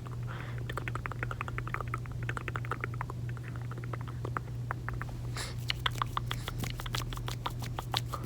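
Gum chewing and wet mouth sounds recorded right at the microphone, a rapid run of small sticky clicks and smacks. They grow faster and louder about five seconds in.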